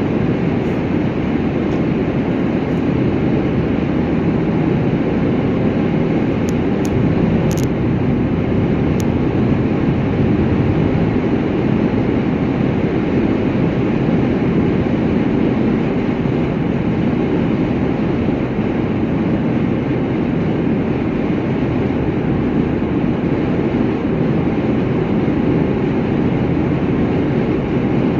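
Steady road and engine noise of a vehicle driving at highway speed, a low even rumble with no change in pace.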